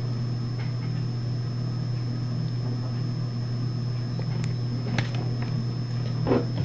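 A steady low hum of room and recording noise, with a few faint light taps and rustles of trading cards being handled about five seconds in and near the end.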